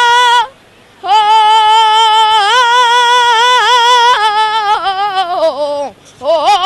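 Saeta sung by a boy's solo voice, unaccompanied: long, ornamented flamenco phrases with wavering held notes. He breaks briefly for breath about half a second in, and a long phrase falls away near the end before the next one begins.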